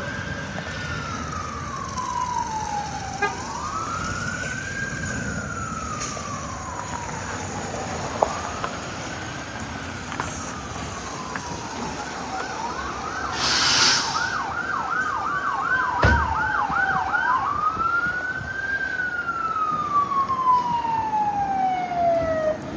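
Emergency vehicle siren sounding a slow rising-and-falling wail, switching to a fast yelp for a few seconds in the middle and then back to the wail. A short burst of hiss comes just before the yelp.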